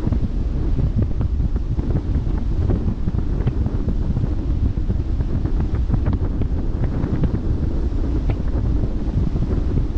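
Wind buffeting the microphone on a ship's bow: a steady, heavy low rumble with small crackles, over the wash of the sea beneath.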